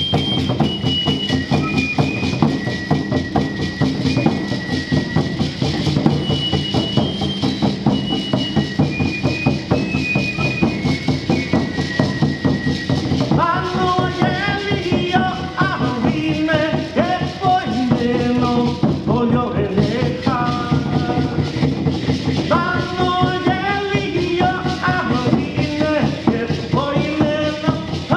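Live pre-Hispanic Mexican music: a high flute melody over steady, fast drumming and shaking rattles, with voices chanting in from about halfway.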